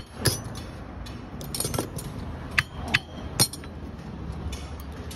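Metal tools and parts clinking and knocking during alternator repair work: a handful of separate sharp strikes over a steady low background, the loudest about three and a half seconds in.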